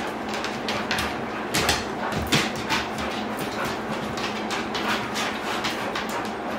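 A dog's claws clicking and scrabbling on a plywood floor as it moves about and jumps up, giving irregular sharp clicks and scuffs, several a second.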